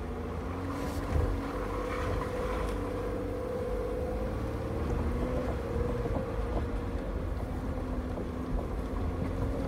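Off-road truck's engine running at low speed with a steady drivetrain hum, heard from inside the cabin as it creeps down a rough trail. There are occasional knocks and clunks over the bumps, the loudest about a second in.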